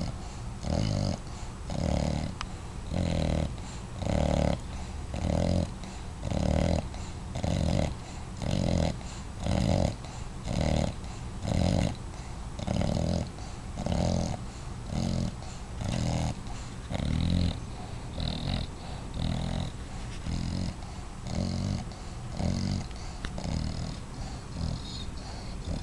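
Five-month-old English bulldog puppy snoring, one snore on each breath at about one a second, steady throughout.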